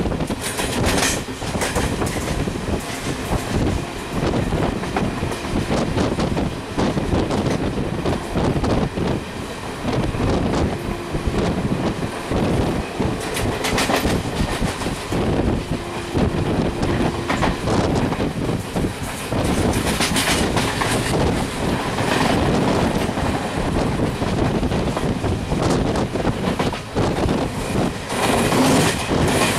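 A Duronto Express passenger train running at speed, heard from on board: its wheels clatter steadily over the rail joints.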